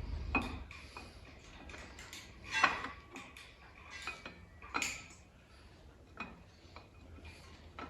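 Hand tools and metal engine parts clinking and tapping irregularly, with two sharper metallic knocks about two and a half and five seconds in.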